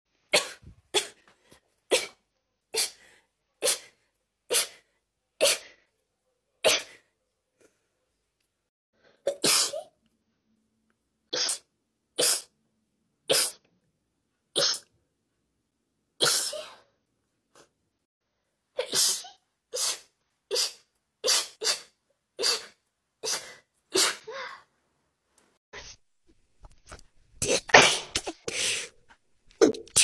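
A woman sneezing over and over in rapid fits: short, sharp sneezes about a second apart, in runs broken by pauses of a second or two.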